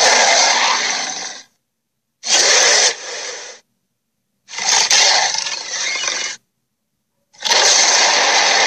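Creature sound effects played one after another: four harsh, rasping bursts, each cut off abruptly into dead silence, the last running on.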